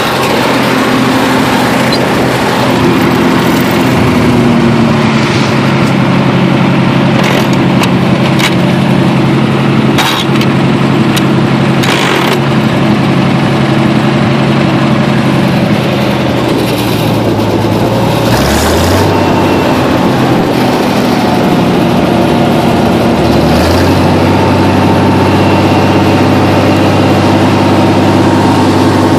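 Oliver 1800 tractor's six-cylinder engine running loud and steady, its pitch sagging about two-thirds of the way through, then coming back up in two steps. A few sharp knocks sound in the middle.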